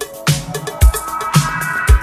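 Electronic background music with a steady drum beat, kick and snare alternating about twice a second, under a held synth chord.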